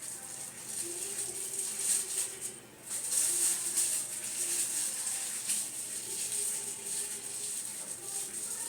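Thin plastic bag crinkling and rustling in irregular bursts as it is twisted tight and pressed around a head of hair, with a short lull about two and a half seconds in.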